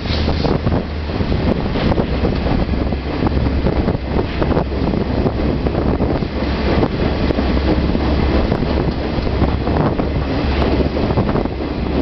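Steady rumble of a moving train heard from aboard, with wind buffeting the microphone.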